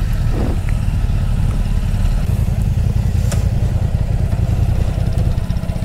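Motorcycle engines idling steadily, with a single sharp click about three seconds in.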